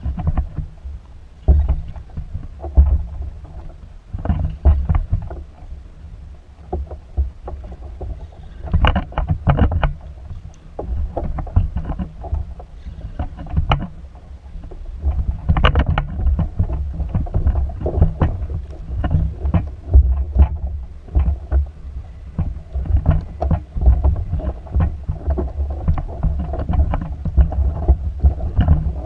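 Choppy water slapping and knocking against a fishing kayak's hull, with wind rumbling on the microphone. The knocks come irregularly throughout.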